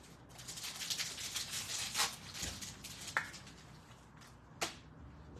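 Foil hockey card pack being torn open, the wrapper crinkling and rustling, then cards handled and shuffled in the hands, with a few sharp clicks and snaps. The sharpest snap comes near the end.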